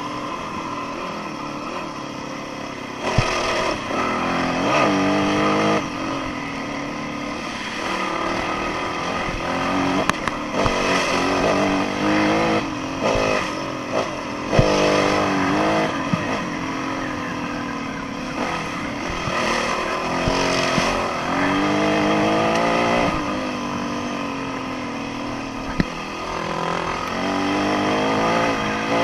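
Dirt bike engine being ridden hard, its revs rising and falling every second or two as the throttle is opened and shut, with a few sharp knocks along the way.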